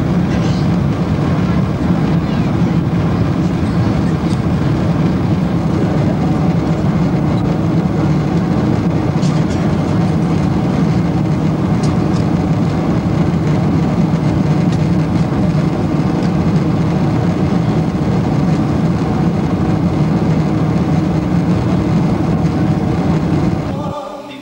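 Jet airliner cabin noise in flight: the steady, even din of the engines and rushing air heard from inside the passenger cabin, which cuts off suddenly near the end.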